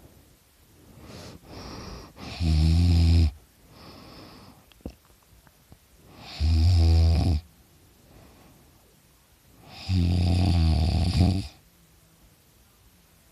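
A teenager snoring loudly through an open mouth: three loud snores about four seconds apart, each lasting about a second, with softer breaths between.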